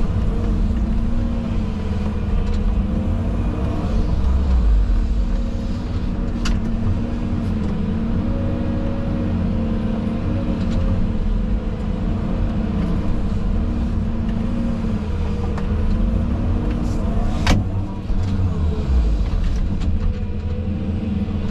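Excavator's diesel engine running continuously, its pitch rising and falling a little as it works, with a low rumble. A sharp metallic clank comes about seventeen seconds in.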